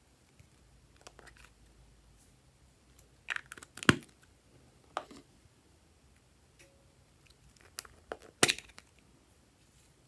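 Hard plastic lip-shaped container being handled and prised open: a few sharp plastic clicks and cracks, the loudest about four seconds in and another near the end.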